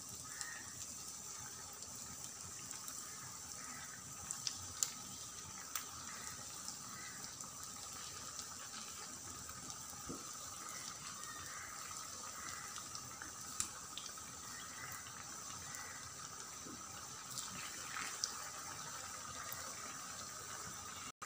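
Potato rings deep-frying in a pan of hot oil: a steady sizzle, with a few sharp ticks as they are turned with a spatula.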